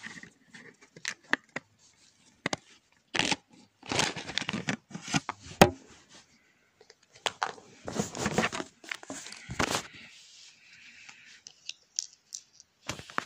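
Close handling of a plastic smartphone and its parts: irregular bursts of scraping and rustling with a few sharp clicks.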